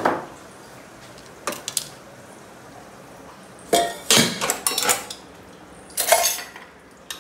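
Kitchen dishes and utensils being handled on a counter: a knock at the start, a couple of light clinks, then a longer clatter about four seconds in and another near the end.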